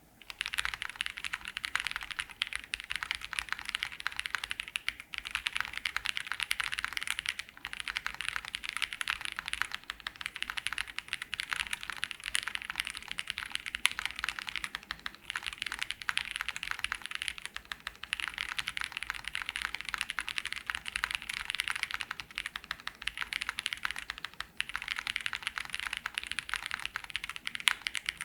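Continuous typing on a JRIS75 gasket-mounted 75% custom keyboard with stock AEBoard Naevy switches, an aluminium plate, case foam and CRP R4 PBT keycaps: a fast, steady stream of keystrokes with a few brief pauses. The sound sits between thocky and clacky.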